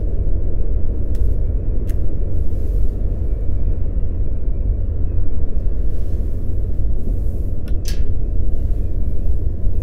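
A loud, steady low rumble, with a few faint clicks over it.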